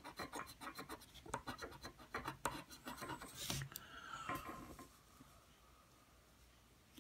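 Scratching off the coating of a paper scratch-off lottery ticket in quick, short rubbing strokes, stopping about two-thirds of the way through.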